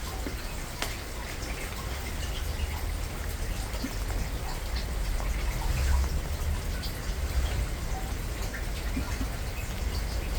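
Steady rain falling, with scattered individual drops ticking, over a low rumble.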